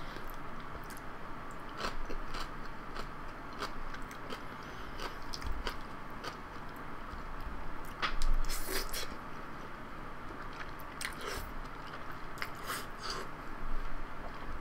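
Close-miked eating of jajangmyeon, wheat noodles in black bean sauce: chewing and wet mouth sounds with small clicks, and a loud slurp of noodles about eight seconds in.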